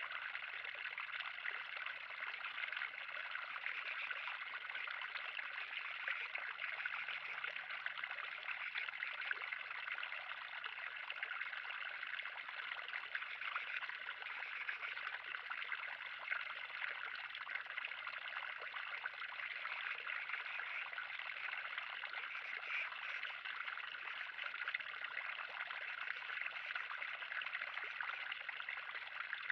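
Water trickling and splashing steadily in a 3000-gallon pond, an even, continuous sound with no pauses.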